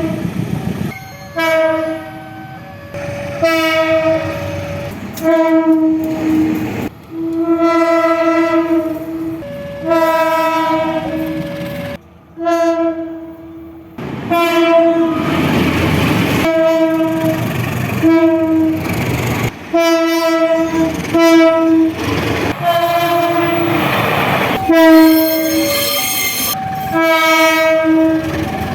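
Indonesian diesel locomotive horns of the 'baung' type sounding a long series of blasts, some short and some held for a second or two, each a chord of two or more notes. In the middle and again later the rumble and wheel noise of a passing train mix in under the horn.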